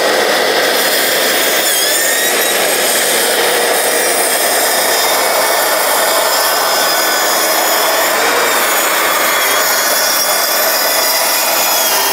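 TICHOP TPS-140BL-B cordless plunge saw running at full speed on speed setting 6, its blade cutting through an 18 mm laminated wood panel across the grain along a guide rail. The cutting noise is steady and loud, with a faint whine that shifts a little in pitch.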